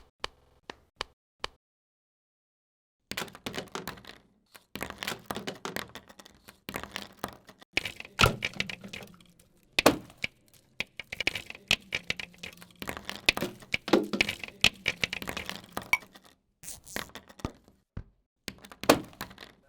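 Homemade foley sound effects: a few isolated clicks, then from about three seconds in a dense, irregular run of cracking, knocking and breaking impacts, with several louder hits.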